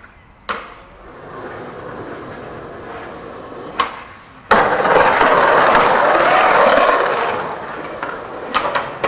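Skateboard wheels rolling on concrete, a sharp pop of the tail about four seconds in, then the trucks grinding loudly down a steel stair handrail for about three seconds before fading. A few sharp clacks of the board near the end.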